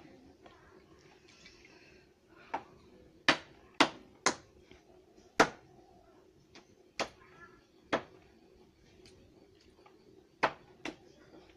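Sharp clinks and knocks from hand work at the metal spindle of a wet-cement mould, about ten in irregular succession over a faint steady hum.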